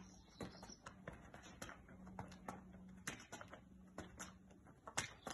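Light, irregular taps and scuffs of sneaker soles on asphalt as feet shift quickly, with one sharper tap about five seconds in.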